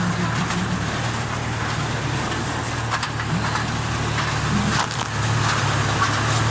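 Carnival horror train ride car rolling along its track, with a steady low hum, rattling and a few sharp clicks. The hum grows louder about five seconds in.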